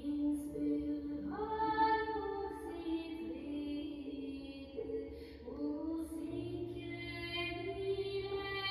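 Music played through a DeVry Type D vacuum-tube amplifier: a slow melody of long held notes that slide into pitch, with a voice-like singing tone.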